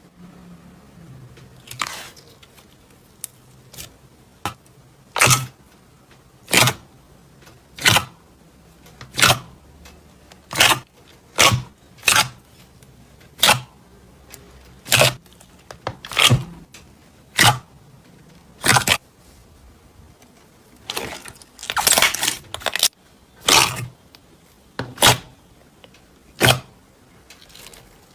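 Crunchy slime being pressed, giving short crackling crunches about every second and a half, with a quicker run of crunches about three-quarters of the way through.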